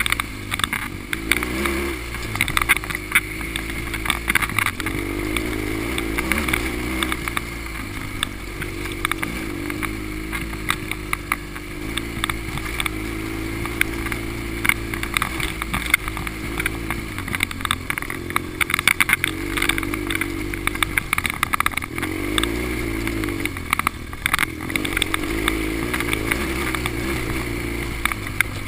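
Dual-sport motorcycle engine running under way, its pitch rising and falling with the throttle, with frequent knocks and clatter as the bike rides over a bumpy dirt track.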